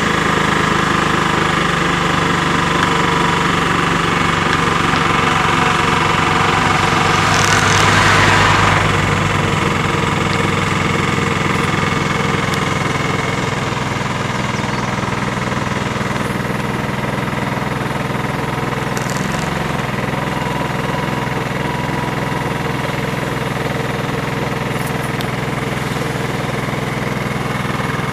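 Steady engine hum and road noise of a vehicle driving along, heard from on board, briefly louder about eight seconds in.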